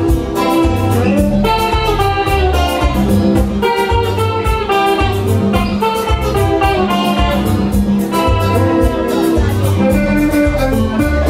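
Semi-hollow-body electric guitar played through an amplifier, over a steady beat of bass and percussion.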